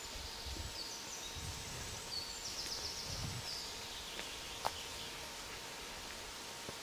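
A small songbird singing a high phrase of short stepped notes, over soft footsteps on a dirt path about once a second; a single click near the end.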